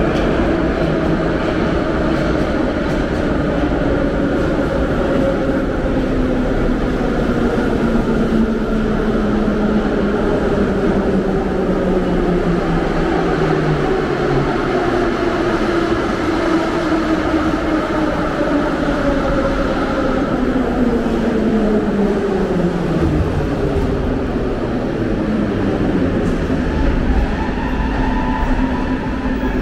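Moscow Metro train running with a steady rumble, its motors whining in several tones that slowly fall in pitch as it slows. The whine drops away about three-quarters of the way through, leaving the rumble.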